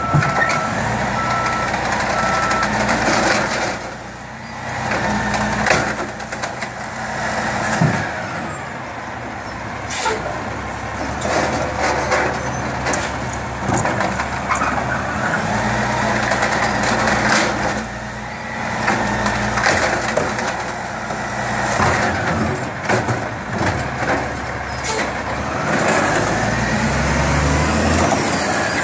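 Automated side-loader garbage truck at work, its diesel engine revving up and down as the hydraulic arm lifts and dumps curbside bins, with several knocks and bangs. A few short beeps sound at the start.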